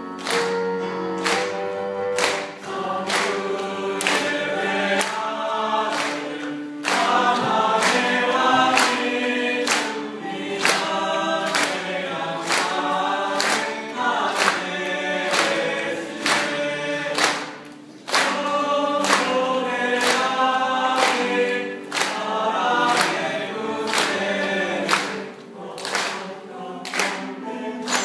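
Church choir of men and women singing together, with a sharp steady beat about one and a half times a second behind the voices.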